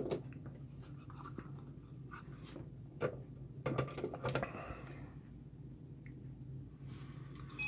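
Faint clicks and rubbing of a USB-C cable being handled and plugged into a power adapter, a few separate clicks spread over several seconds, over a low steady hum.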